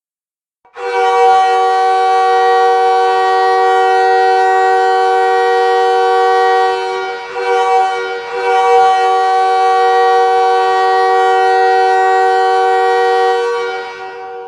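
Ice hockey arena goal horn sounding one long, loud, steady blast of several pitches held together like a chord. It starts about a second in, wavers briefly about halfway through, then fades away near the end.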